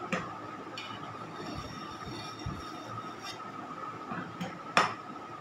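A few light clicks and knocks of a metal palette knife against the cake and aluminium turntable while cream is spread for a crumb coat, the loudest knock near the end. A steady high-pitched hum runs underneath.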